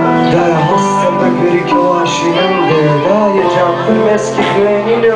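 Live band music with sustained guitar chords and a male voice singing over it.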